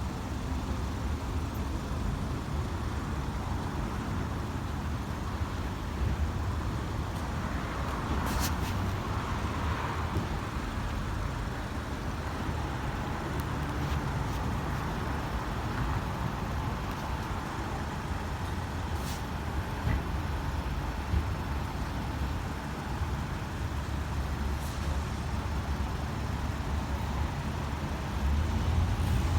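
Steady low rumble of road traffic, with no siren or air horn sounding, and a few brief clicks.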